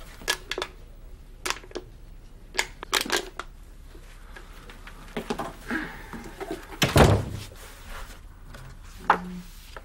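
Scattered light knocks and handling noises, with one heavier thump about seven seconds in.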